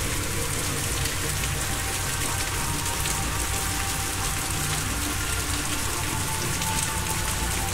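Steady rain falling, a relaxation soundscape, with faint held tones of soft background music underneath.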